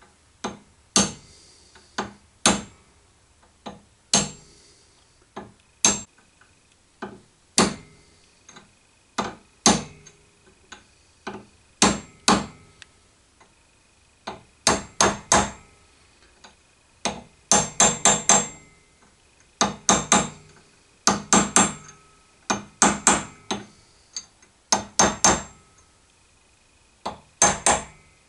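Hammer tapping a brass drift to drive a spindle bearing's outer race into the mill quill: single taps at first, then quicker runs of two to four taps. The race is going in easily.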